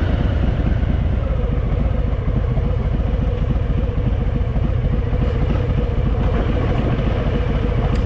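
Harley-Davidson Fat Boy motorcycle being ridden, its V-twin engine running steadily under way.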